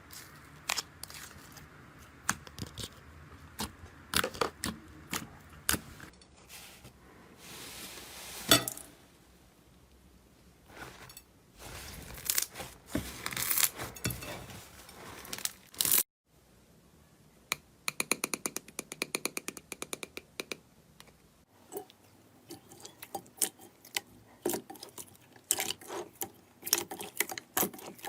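Slime being squished, poked and stretched by hand: sticky clicks, pops and crackles in a string of short clips. Past the middle, a fast even run of small clicks lasts a few seconds.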